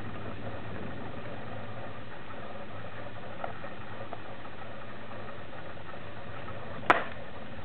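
Steady low hum with faint background noise, two faint ticks past the middle, and one sharp click about seven seconds in.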